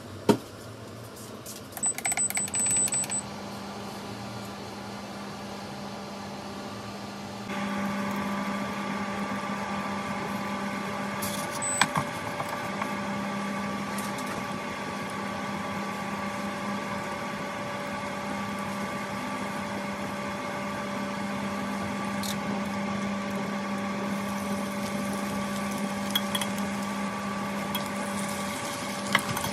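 Portable induction hob running under a saucepan of melting butter, giving a steady electrical hum with several steady tones, which gets louder and fuller about seven seconds in. A short burst of electronic beeping comes about two seconds in, and a few light clicks come near the end as chopsticks stir the pan.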